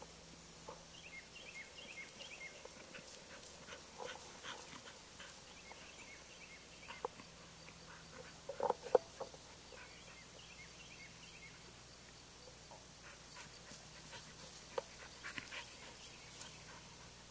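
English springer spaniel giving a quick run of short yelps about halfway through.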